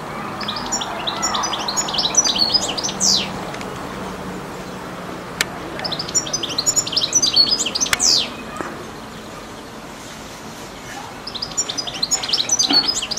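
European goldfinch singing: three phrases of quick, high twittering notes a few seconds apart, each ending in a falling sweep.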